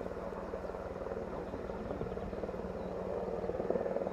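Firefighting helicopter's rotor beating in a fast, even chop over a steady low hum, getting a little louder near the end.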